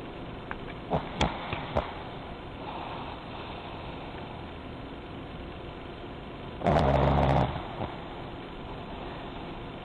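Pekingese dog snoring in its sleep: one loud, low-pitched snore lasting just under a second, about two-thirds of the way through. A few sharp clicks come about a second in.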